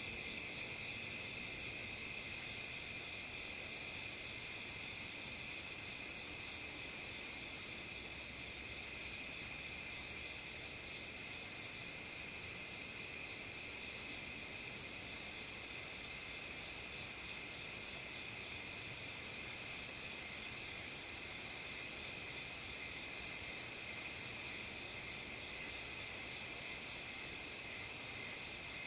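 A chorus of autumn crickets and other insects trilling without a break, several high-pitched songs sounding at once.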